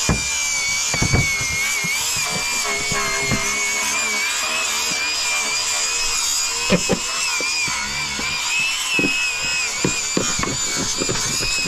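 Small handheld electric power tool running continuously with a high, slightly wavering motor whine, with a few short knocks of the tool against the metal.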